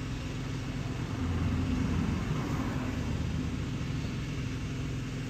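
Low, steady rumble of a motor vehicle's engine, swelling between about one and three seconds in and then easing back.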